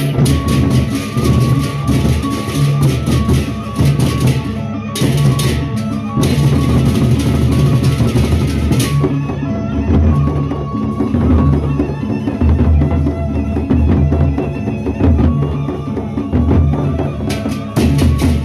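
Lombok gendang beleq ensemble playing: large double-headed barrel drums beaten in a dense, driving rhythm with clashing hand cymbals. The cymbals drop out about halfway through, leaving the drums and a steady ringing tone, and come back in near the end.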